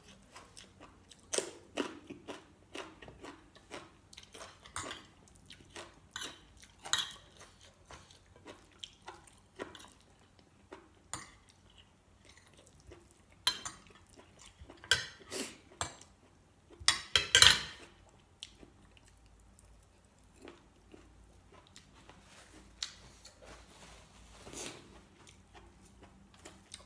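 Metal spoon and fork clinking and scraping against a plate, with chewing in between. Short scattered clicks, loudest in a brief clatter about seventeen seconds in.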